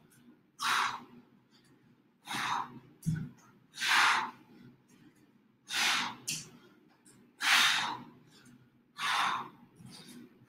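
A person breathing hard through a high-intensity interval exercise: six forceful, hissing exhalations at a steady pace of about one every one and a half to two seconds. There is a soft low thump about three seconds in.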